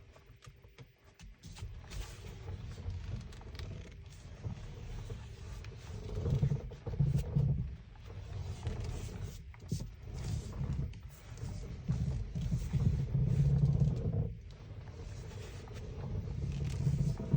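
Kia Niro's steering making a low noise as the steering wheel is turned with the car stationary, coming and going in spells of a second or two several times. The dealer found nothing wrong with it.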